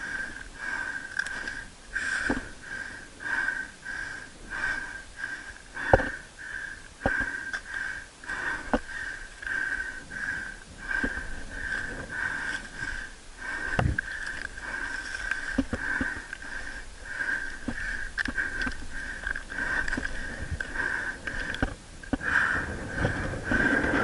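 A climber's hard, rhythmic breathing while scrambling uphill, about one and a half breaths a second, close to the camera. Occasional sharp knocks of boots or hands on rock, the loudest near six, seven and fourteen seconds in.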